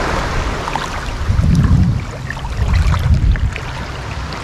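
Small waves and shallow sea water sloshing around a person wading, with two louder low surges about a second and a half and three seconds in.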